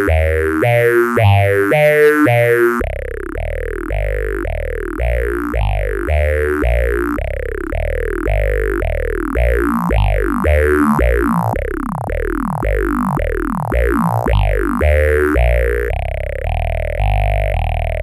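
A modular synthesizer sequence of low, resonant notes, about two a second, played through a Boss PH-2 phaser rebuilt as a Eurorack module. Each note carries a falling, whooshing sweep. The tone shifts as the phaser's knobs are turned: the top end drops away about three seconds in, and the sweeps flatten out near the end.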